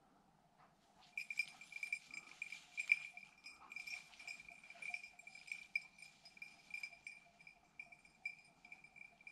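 A small bell jingling faintly and irregularly, starting about a second in: the bell of a hunting dog moving through the forest.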